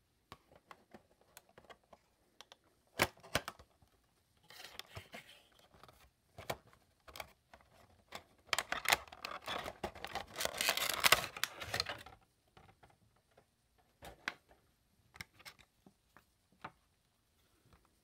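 Hands handling and opening a Funko Pop cardboard window box and drawing the figure out of its plastic insert: scattered light clicks and taps, a sharp click about three seconds in, and a longer stretch of rustling and scraping in the middle that is the loudest part.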